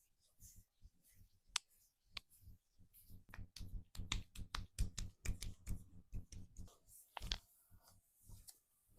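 Sharp cracks and clicks during spine cracking and back massage: two single cracks early, then a dense run of them through the middle, with a strong one near the end.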